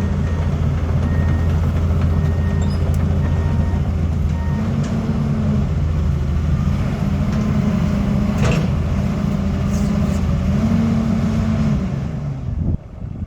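John Deere 230C LC excavator's diesel engine running, with a repeating electronic beep for the first few seconds. The engine note then rises and falls several times as the machine works, and the sound drops away sharply near the end.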